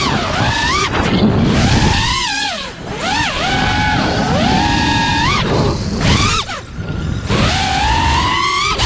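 FPV racing quadcopter's four T-Motor F80 Pro brushless motors spinning HQ 5x4.3x3 three-blade props, a high whine that rises and falls sharply in pitch several times as the throttle is punched and chopped, over a rough rush of wind, heard from the onboard camera.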